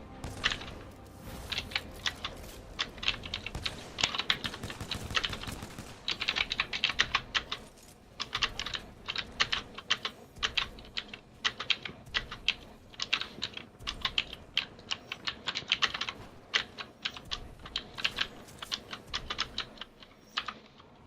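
Typing on a mechanical keyboard with clicky Gateron Blue switches: fast, sharp key clicks in runs, broken by short pauses.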